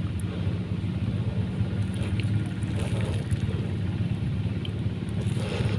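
Steady low drone of an engine running without change, with a few faint small ticks partway through.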